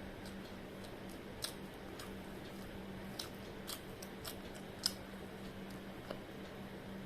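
A person chewing fried momos: about half a dozen crisp, sharp crunches and mouth clicks, spaced irregularly and loudest about five seconds in.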